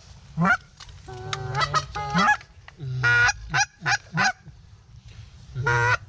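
Goose flute call blown close by, imitating Canada goose honks and clucks: a run of about nine loud, short calls, some with a sharp break in pitch, to work circling geese in.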